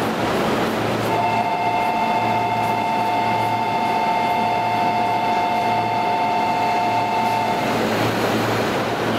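A Keihin-Tohoku Line E233-1000 series electric train standing at a station platform, its equipment humming, with a low hum that swells and fades about once a second. About a second in, a steady two-note tone starts and is held for about six seconds, then stops.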